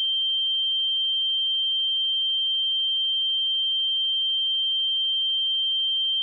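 A steady, unbroken 3144 Hz sine-wave test tone: a single pure high-pitched note held at constant loudness.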